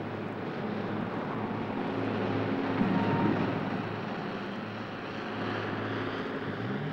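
Large forklift's engine running with a steady drone, swelling a little about halfway through.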